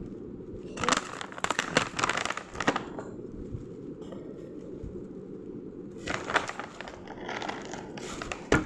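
Cat-food packaging being handled and opened, crinkling and crackling. There are two spells of it, about a second in and again about six seconds in, with a sharp crack near the end, over a steady low hum.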